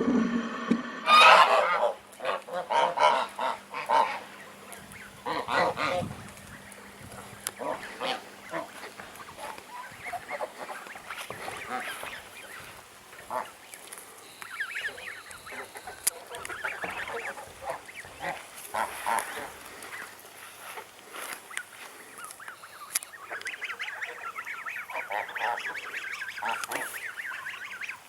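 Farmyard poultry calling, with goose-like honks: a loud run of calls in the first few seconds, then scattered shorter calls.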